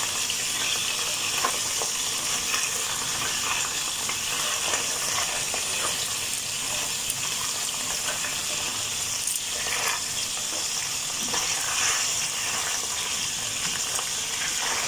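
Chunks of beef searing in hot oil in a pan, sizzling steadily, with scattered light clicks and scrapes as the pieces are turned over with silicone-tipped tongs.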